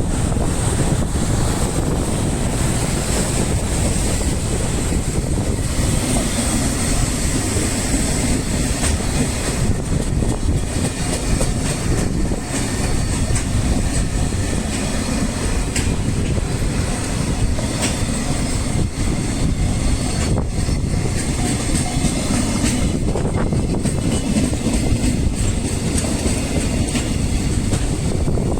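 Freight train hauled by an EF210 electric locomotive passing close by at speed. Its wagons keep up a loud, steady rumble and clatter of wheels on rail.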